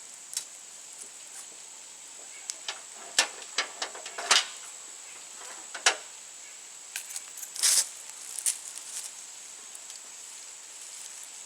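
Irregular light clicks and knocks of hand tools and small metal mower parts being handled, with a slightly longer scraping sound about eight seconds in.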